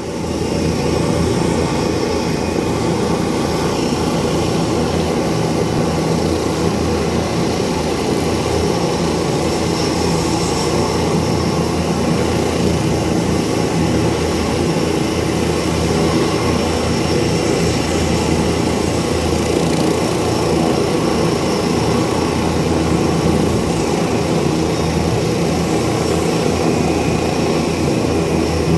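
Helicopter running on the ground before lift-off: steady engine and rotor noise with a thin high whine over it, unchanging in level throughout.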